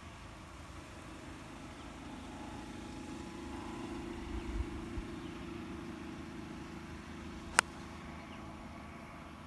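A single sharp crack of a golf club striking the ball on a tee shot, about three-quarters of the way through. Under it a low, steady motor hum grows louder in the middle and eases off.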